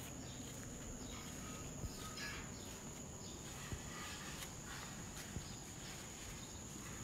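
Faint outdoor ambience: a steady high-pitched insect trill, like crickets, with faint scattered scuffs.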